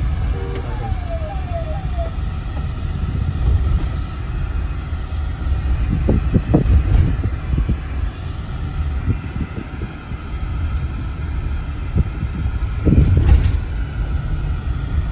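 Car cabin rumble from the engine and tyres while driving, with a few louder bumps about six seconds in and again near the end.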